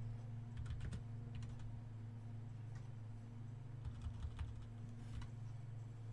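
Typing on a computer keyboard in short irregular runs of key clicks, over a steady low electrical hum.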